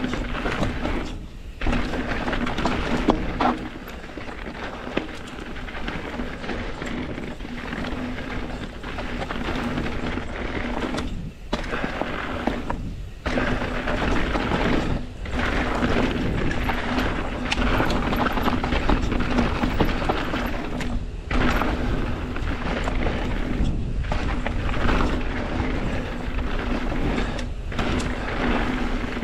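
Mountain bike riding downhill on a rocky dirt trail: tyres rolling over dirt and rocks and the bike rattling, under a constant rush of wind on the microphone. A steady low hum runs through it, with a few brief drops in level.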